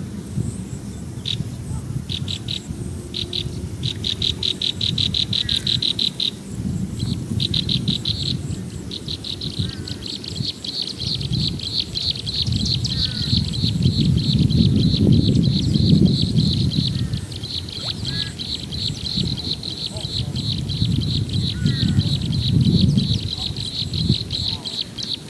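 Insect trilling: a fast, evenly pulsed high buzz that comes in short bouts at first and runs without a break from about halfway through, with a few short bird chirps. A low, rising-and-falling rumbling noise runs underneath.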